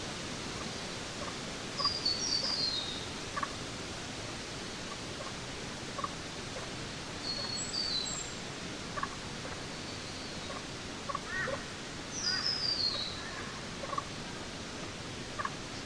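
Jungle ambience: a steady hiss of background noise with birds calling over it, three short falling chirp series, about two seconds in, near eight seconds and around twelve, and scattered shorter, lower chirps between.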